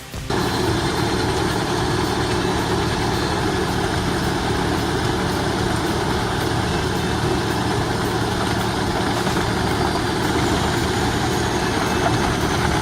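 Heavy machine engine running steadily under a dense, even mechanical noise, which cuts in abruptly right at the start.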